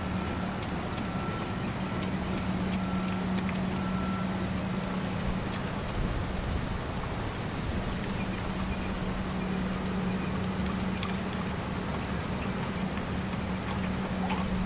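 Aerial tramway car travelling along its track ropes: a steady mechanical hum with an even rumbling, rushing noise, and a few faint clicks.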